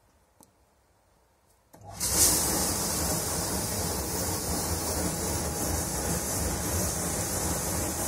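Fagor AD-48C commercial dishwasher starting a cycle: a small click as the program button is pressed, then about two seconds in a steady rush of water starts suddenly and runs on as the wash begins.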